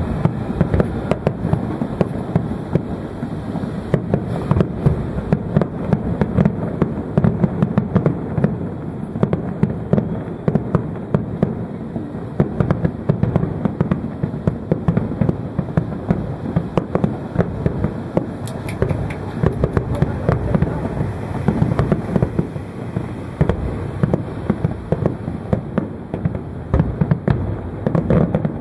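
Fireworks display: a dense, continuous barrage of shells bursting in rapid, overlapping bangs and crackles.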